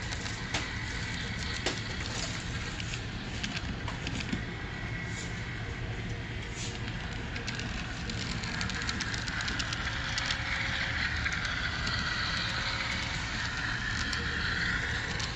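HO scale model streetcar running on its track: a faint whirring of its small motor and wheels with scattered light clicks over a steady room hum. The whirring grows louder in the second half.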